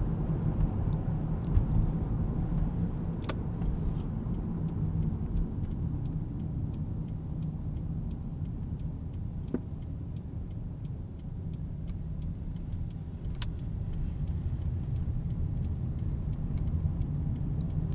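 Car driving: a steady low rumble of engine and road noise, with a few faint sharp clicks.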